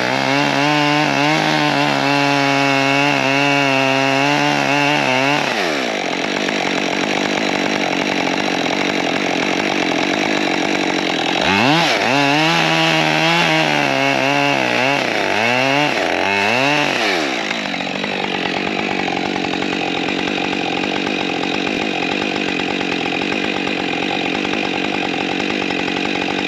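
Husqvarna two-stroke chainsaw at full throttle, its pitch dropping as the chain bites into the wood about five seconds in. It climbs back up briefly near the middle, then drops again and runs on under load through the cut.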